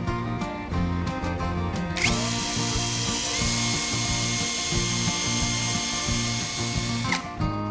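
An electric power tool motor spins up about two seconds in, runs steadily at high speed, and winds down near the end, over background music with a steady beat.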